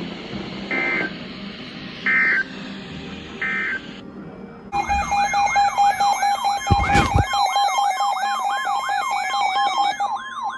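Three short, buzzy EAS data bursts, the end-of-message code, about a second and a half apart. About five seconds in, a loud emergency alert tone starts: a wailing sweep repeating about three times a second over a steady tone, with a brief low thud partway through.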